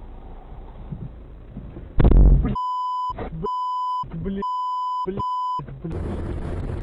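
Dashcam audio of a car crash: low road noise, then a sudden loud bang about two seconds in, the collision. Four steady, high electronic bleeps follow, with short bursts of other sound between them, and near the end steady road noise returns.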